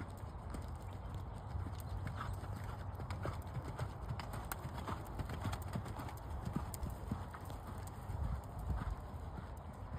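Hoofbeats of a ridden horse trotting on soft ground: dull, uneven thuds with scattered light clicks, over a steady low rumble.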